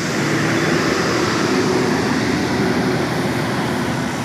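A large bus running close by: a steady, loud rushing noise with a low engine hum underneath.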